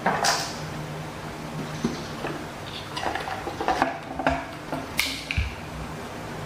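Scattered light knocks, clicks and clatters of a baby monkey handling a plastic baby bottle, with a busier run of them midway.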